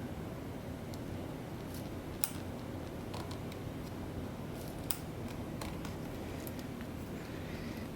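Scattered small, sharp clicks and taps as ribbon-cable connectors are pressed into place inside an opened MacBook Pro, the loudest about two and five seconds in, over a steady low hum.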